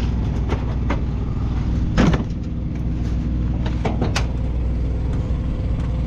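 Truck engine idling steadily, with several sharp metal knocks and clanks, the loudest about two seconds in, as the bolted step cover over the batteries is worked loose.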